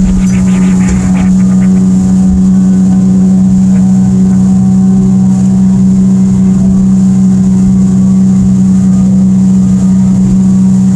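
Evinrude 115 E-TEC two-stroke outboard running steadily at speed, a constant even drone that holds one pitch, over the rush of water from the boat's wake.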